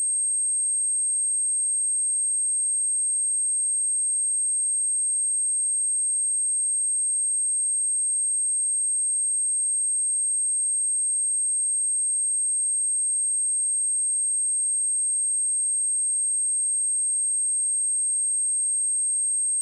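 A pure 8434 Hz sine-wave test tone, a single steady high-pitched whistle, as played to test speakers or to shake water and dust out of them.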